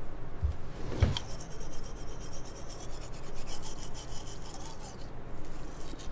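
A soft thump, then a rapid, even rasping, like filing or scrubbing, that runs for about four seconds before stopping.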